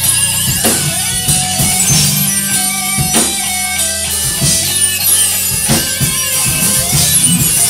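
Live rock band playing an instrumental passage: electric guitar over a drum kit with steady beats and cymbals.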